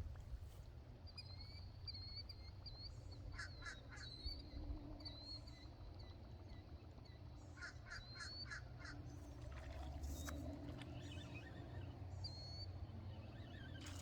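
Crows cawing in two short series, around four and eight seconds in, with higher bird chirps scattered between them over a steady low rumble.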